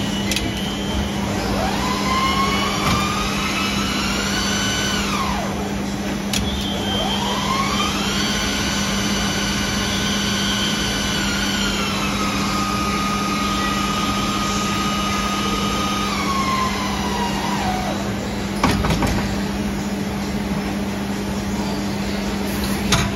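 EMCO Turn 425 MC double-spindle CNC lathe at work: a steady hum under a spindle whine that rises in pitch, holds and winds down, twice, the second time holding one pitch for several seconds. A few sharp clunks, the loudest near the end.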